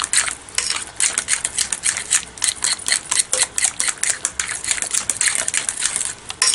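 A hand whisk beating a thick cream-cheese mixture in a glass bowl, a fast run of clicks and scrapes against the glass, about five or six strokes a second, as the melted butter is worked in.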